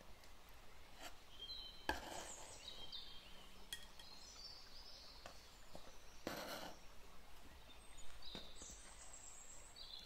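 Faint knife strokes and light taps as a peeled kiwi is sliced and handled on a bamboo cutting board with a ceramic knife, one longer slicing stroke a little past the middle. Small birds chirp faintly in the background now and then.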